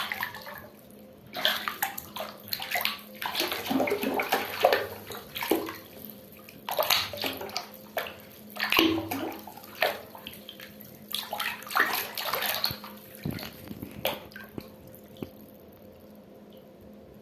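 Water splashing and sloshing in irregular bursts with short pauses, dying away over the last few seconds.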